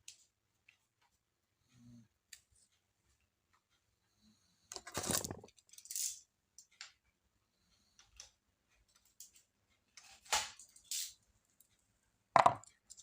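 Laptop parts and small tools being handled during assembly: scattered light clicks and taps with a few short scraping rattles, the loudest near the end.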